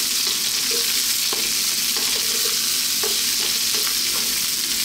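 Mushrooms and cauliflower sizzling in hot oil in a wok, stirred with a wooden spatula that scrapes across the pan a few times.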